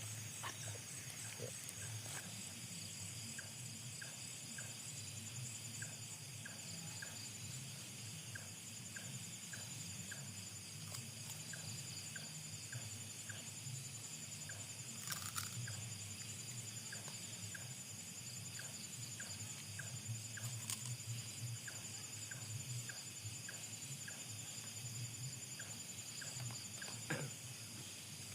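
Night insects chirping steadily in a high pulsing drone, over a faint, regular soft ticking about twice a second. A few short knocks come midway and near the end.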